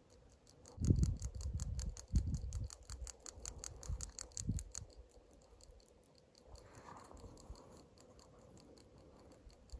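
Low rumbling bumps and rubbing on the microphone, a few bouts in the first five seconds, over faint rapid ticking.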